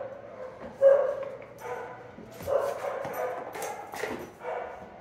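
A dog giving a string of short whines and yips, the loudest about a second in. A couple of sharp plastic clicks come near the end as it noses a plastic ball-track toy.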